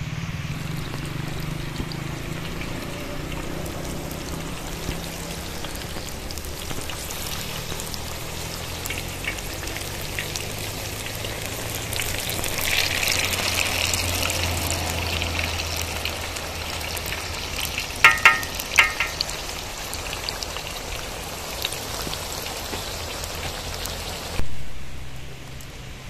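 Vegetable slices frying in hot oil in a steel pan: a steady sizzling hiss with fine crackle, brighter for a few seconds in the middle. A few sharp clinks of the fork against the pan a little past the middle, and a brief louder burst near the end.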